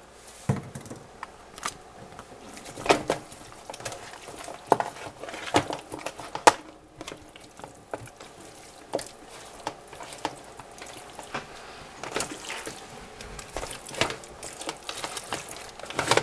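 Raw chicken pieces being handled and turned by hand in a plastic tub, with irregular wet slaps and knocks.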